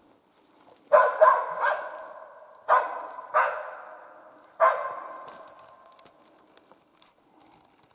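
A hunting laika barking: about six sharp barks in three bunches over the first five seconds, each trailing off in a long echo.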